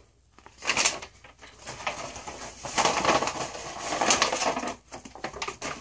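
Paper rustling and crinkling on and off as a letter is handled and small items are taken out of a mail envelope.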